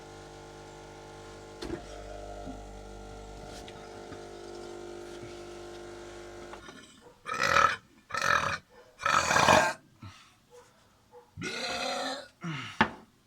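A person burping loudly about five times in quick succession in the last half, each burp a short pitched croak. Before the burps a steady hum with several fixed tones runs and then cuts off.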